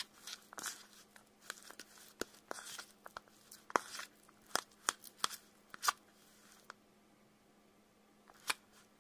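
Metal stirring stick mixing white glue into silly string foam in a bowl: irregular clicks and short crunchy, squishy scrapes against the bowl, pausing for about a second and a half near the end.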